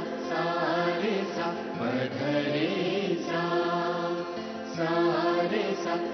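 Background score music: a sung melody that bends in pitch over steady held notes.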